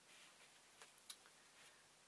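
Near silence: quiet room tone, with two faint, sharp clicks in quick succession about a second in.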